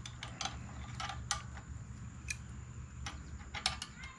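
Scattered light clicks and taps of small metal tools and parts being handled at a workbench, irregular with a few sharper clicks, over a steady low hum.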